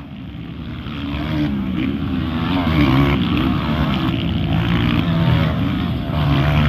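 Several motocross dirt bike engines revving as the bikes ride past, their pitch repeatedly rising and falling with the throttle over a steady low rumble.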